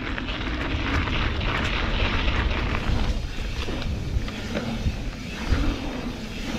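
Knobby mountain bike tyres crunching over a gravel path, changing about three seconds in to a smoother rolling hum on the asphalt of a paved pump track, with wind rumbling on the camera microphone.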